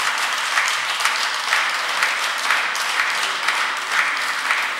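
Applause from members of parliament after a speech: many hands clapping in a dense patter, with a loose beat of about two claps a second.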